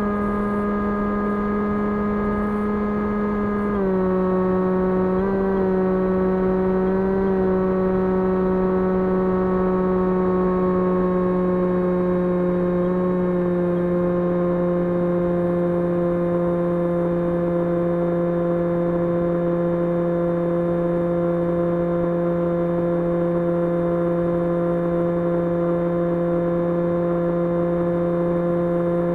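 Brushless 2300KV electric motor and propeller of an FPV model plane running at steady throttle, a constant whining drone that eases down a little in pitch a few times in the first half and then holds steady.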